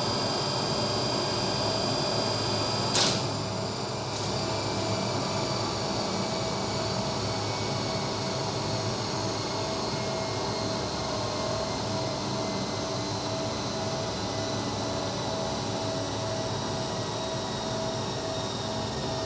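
Motor-generator set of a 1971 Flohr Otis DC gearless lift running with a steady hum and whine. A loud clack comes from the relay controller about three seconds in, with a lighter click a second later. After that the generator begins its spindown, its whine tones falling slowly.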